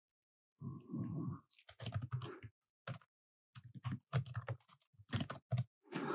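Typing on a Samsung Chromebook's laptop keyboard: uneven runs of keystroke clicks, starting about half a second in.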